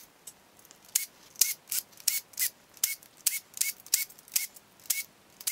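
Sharp metallic clicks from tool work on an engine, about three a second, each with a brief ring.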